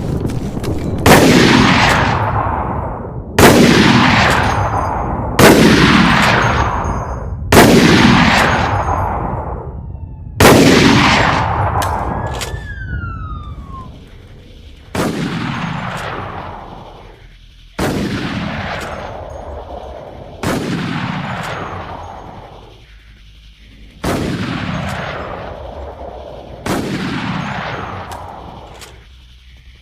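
Anti-materiel rifle firing ten heavy single shots, two to four seconds apart. Each shot is followed by a long rolling echo that dies away over about two seconds. The last five shots are quieter than the first five.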